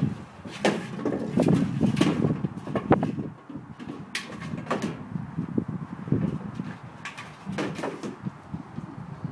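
A large toy egg knocking and scraping on wooden deck boards as a 115-pound Malamute puppy pushes it around, in irregular bumps and clatters that are busiest in the first three seconds and thin out after.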